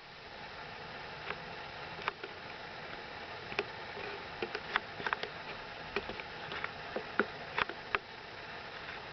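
Light handling noise: small irregular clicks and taps, roughly one or two a second, over a steady hiss.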